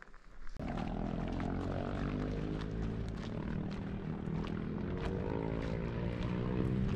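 An engine drones steadily, its pitch drifting slowly, starting abruptly about half a second in.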